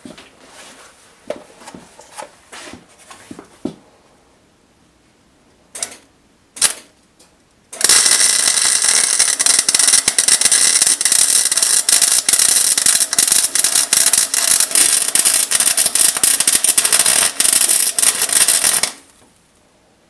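MIG welder arc crackling steadily for about eleven seconds, starting about eight seconds in, as a bead is run around the back side of a small sprocket held in a vise. Before it come a few light clicks and knocks, then two short sharp bursts.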